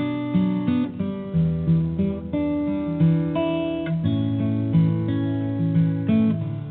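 Acoustic guitar music, picked notes ringing on one after another with some strummed chords, no singing.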